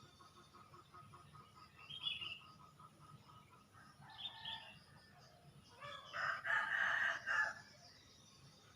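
A rooster crows once about six seconds in, a call of about a second and a half. Before it, other birds give short calls and a fast pulsing trill.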